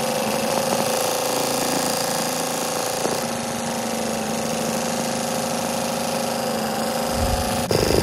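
Multi-needle embroidery machine running steadily, its needle rapidly sewing a zigzag finishing stitch through glitter heat-transfer vinyl applique; the sound changes abruptly and gets louder just before the end.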